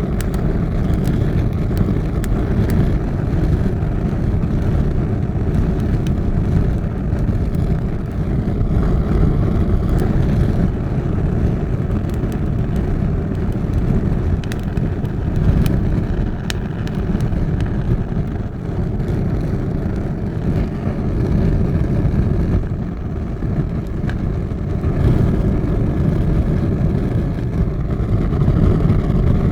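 Fire burning with a steady, deep roar and scattered sharp crackles and pops.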